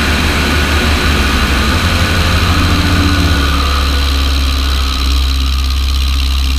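Tiger Moth biplane's four-cylinder Gipsy Major piston engine running steadily in flight, with wind rushing over the wing-mounted microphone. The low engine drone turns smoother a little past halfway.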